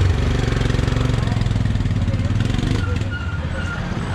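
Royal Enfield Himalayan's single-cylinder engine running with a steady low thump. It fades somewhat after about two and a half seconds as the motorcycle moves off.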